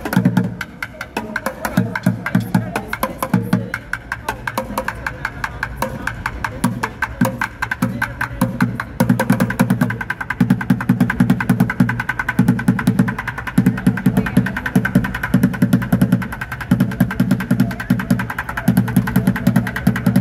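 Street bucket drumming: two drummers playing upturned white plastic buckets with drumsticks in a fast, steady rhythm of rapid hits, with deeper thuds in regular groups.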